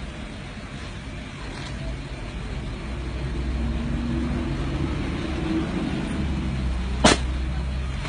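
Motorbike engine running with a low rumble that grows louder partway through. A single sharp click about seven seconds in.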